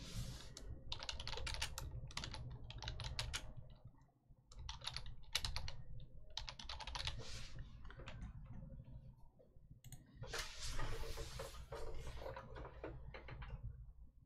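Computer keyboard typing in several quick bursts of rapid key clicks with short pauses between.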